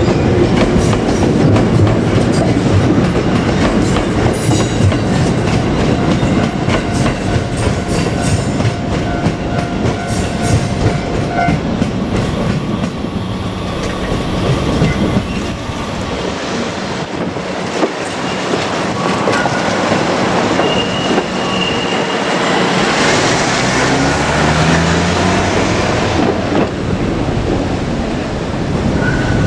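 JR Kyushu 787 series electric express train running on the track, its wheels clattering over the rail joints with a heavy rumble.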